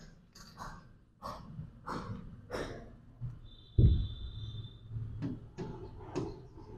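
Marker pen writing on a whiteboard: a string of short, faint scratchy strokes, with a thin high squeak lasting about a second near the middle. A single dull knock comes about four seconds in.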